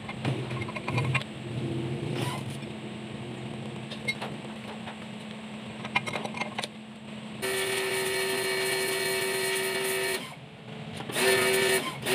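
A loud steady pitched tone with many overtones sounds for about three seconds, then again briefly near the end, over a low steady hum and a few light knocks.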